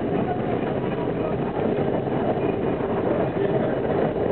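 R42 subway train running at speed, heard from inside the car: a steady rumble of wheels on rail and car noise, with no distinct rail-joint clicks.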